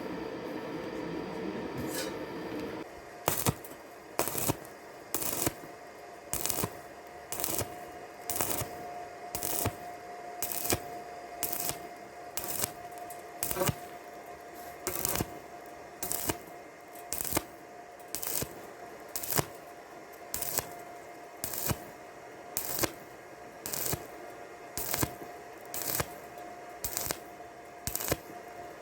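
Hammer tapping on steel: about one sharp metallic strike a second, over a faint steady hum, typical of chipping slag off a stick weld. A steady noise is heard in the first few seconds and stops about three seconds in.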